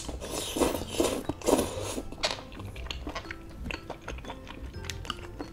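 A person slurping up saucy noodles, a few loud slurps in the first two seconds or so, then wet chewing with small clicks of chopsticks against the bowl. Soft background music runs underneath.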